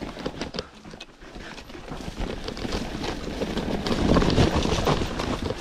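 Mountain bike riding down a rough trail: tyres running over loose rock and the bike rattling with many small knocks, with wind on the microphone. It grows louder about two seconds in.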